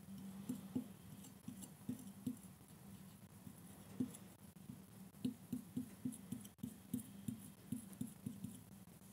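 Faint soft tapping and handling noises from hands working with craft materials at a table, scattered at first, then quicker and more regular from about five seconds in, around three taps a second.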